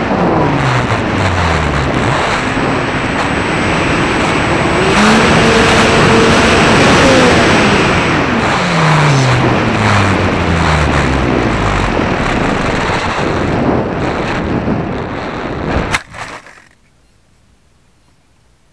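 Onboard sound of a radio-controlled foam BF-109 'Fun Fighter' in flight: wind rush over the airframe and the whine of its electric motor and propeller, the pitch sliding down, holding, then sliding down again as the throttle changes. About sixteen seconds in there is a knock as the plane touches down in the grass, and the motor and wind noise fall away.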